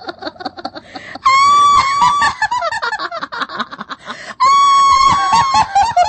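Horror sound effect of an eerie voice: rapid cackling laughter broken twice by a loud, shrill, held scream that falls back into the cackle.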